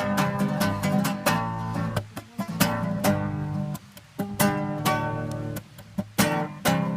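Acoustic guitar strummed in chords in a steady rhythm, with a few brief breaks between phrases.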